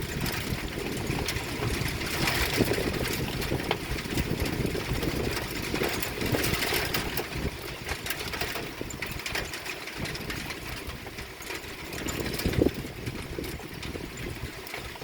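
Sleet falling and hitting hard surfaces: a dense, steady spread of tiny clicks over a hiss.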